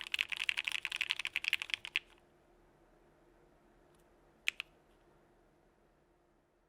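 Fast typing on a Frog by Geonworks mechanical keyboard with Gateron Blue Bubblegum linear switches in an aluminum plate: a quick run of keystrokes for about two seconds. Then, after a pause, a few lone key clicks around four and a half seconds in.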